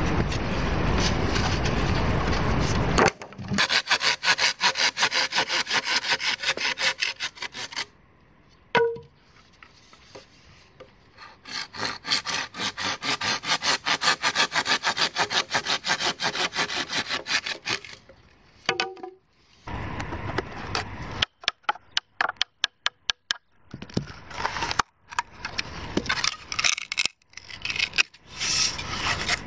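A steady rushing noise for the first three seconds. Then a hand saw cuts through green bamboo in two long runs of quick, even strokes. Near the end come irregular sharp knocks and scrapes as a blade splits and trims the bamboo.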